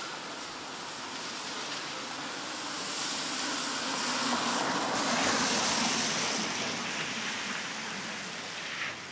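A vehicle passing by on the street, its noise swelling to a peak about five seconds in and then fading away.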